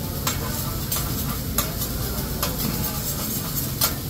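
Food sizzling on a hot steel hibachi griddle, with about five sharp, irregular clicks of a metal spatula striking the griddle top.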